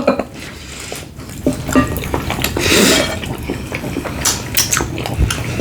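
Close-up eating sounds: wet chewing and mouth noises with scattered short clicks. A longer noisy burst comes about halfway through.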